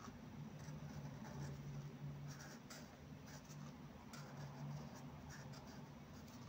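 Chisel-tip marker nib stroking across paper while lettering a word: a faint series of short scratchy strokes, over a low steady hum.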